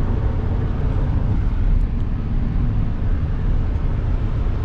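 Steady low road and engine drone heard inside a pickup truck's cab while driving at highway speed.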